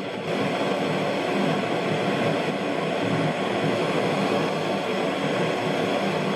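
Gas torch flame burning steadily with an even rushing noise as it heats the steel neck of a scythe blade to red heat for bending.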